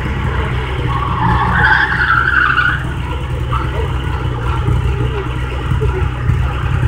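Car engine running steadily with a low rumble, while tyres squeal briefly on a car going through the slalom course, from about one to three seconds in.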